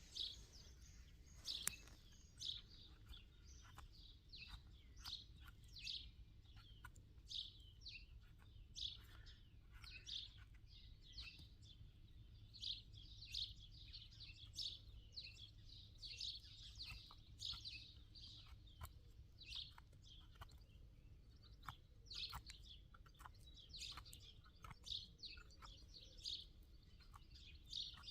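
Faint morning birdsong: many short chirps and trills from small songbirds, overlapping and continuing without pause.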